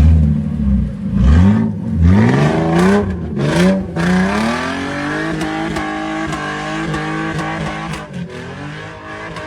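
Off-road 4x4's engine revving hard in several quick rises and falls, then holding at steady high revs for several seconds before easing briefly near the end.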